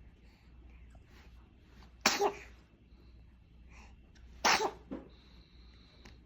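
A baby coughing twice, about two seconds in and again about four and a half seconds in, each a sharp burst followed by a smaller one.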